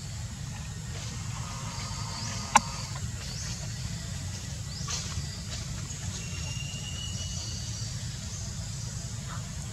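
Outdoor forest ambience: a steady low rumble and hiss, with a few short high chirps and one sharp click about two and a half seconds in.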